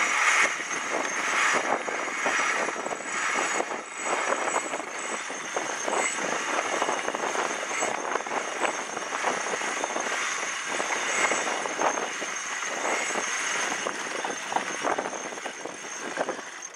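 A schooner's mainsail being hoisted by hand: the loose canvas flapping and rustling with a continuous crackle as it luffs in the wind, along with the rigging running up the mast.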